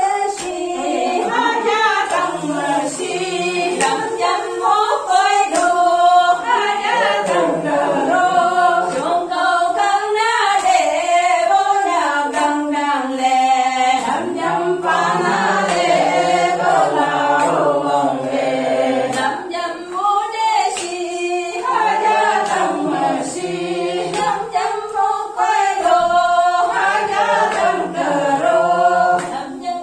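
A group of people singing together in chorus, unaccompanied, phrase after phrase with brief breaths between.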